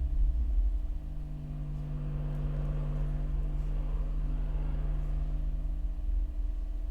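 Sustained low drones from a new-music ensemble of contrabass clarinet, electric guitar, cello and double bass, held over a deep rumble. The main low tone steps slightly higher a little under a second in and then holds steady.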